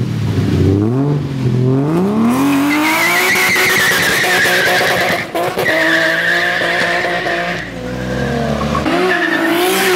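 Car drifting: the engine revs up and is held high while the rear tyres squeal in a long, wavering screech from about two and a half seconds in, broken briefly once in the middle. The squeal drops away near the end as the engine note rises again.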